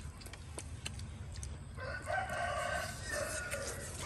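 A rooster crowing once, starting about two seconds in and lasting nearly two seconds. A few faint clicks sound around it.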